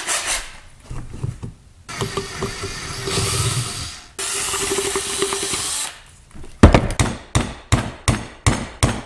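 Cordless drill running in two bursts of about two seconds each, boring into the plastic end of a caulk tube. Then a quick series of sharp hammer blows, about three a second, driving a large nail down into the tube.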